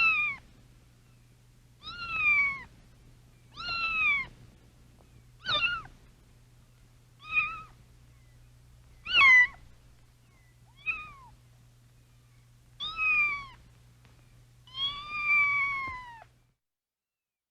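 Domestic cat meowing over and over, about nine meows roughly two seconds apart, each falling in pitch, the last one longer. A faint low hum runs beneath, and all sound cuts off near the end.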